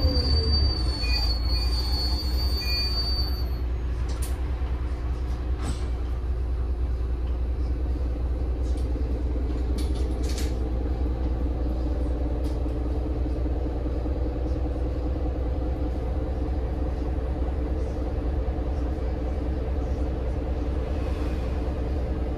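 Heuliez GX 137 city bus under way, its Iveco Tector 7 six-cylinder diesel engine running with a steady drone over a heavy low rumble. A high squeal sounds for the first few seconds, and a few clicks and rattles come later.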